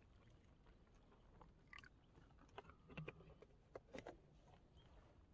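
Near silence with a few faint, scattered clicks and crunches, the clearest about three and four seconds in.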